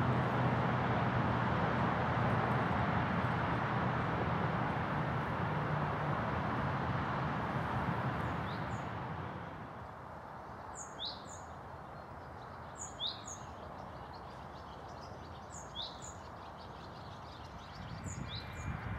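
Steady outdoor rush of background noise with a low hum, which drops away about halfway through. After that, a small songbird repeats a short, high two-note call about every two to three seconds over quieter surroundings.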